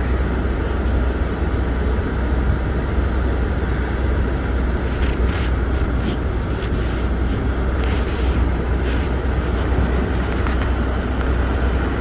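Inside a car's cabin while driving on a snow-covered road: steady low rumble of engine and tyres, with several short brushing noises about halfway through.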